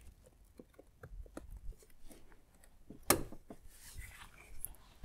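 Hand working among rubber hoses and plastic parts under an intake manifold: soft rustling and small clicks, with one sharp plastic click about three seconds in as the purge line's clamp snaps onto the manifold.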